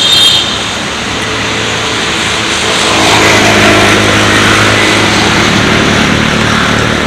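A motor vehicle's engine running with road and wind noise, getting louder about three seconds in.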